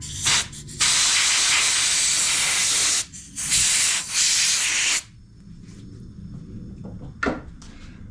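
Compressed-air blow gun blasting air through a small fuel-system filter screen: a short puff, then two hissing blasts of about two seconds each, stopping about five seconds in. A brief knock follows near the end.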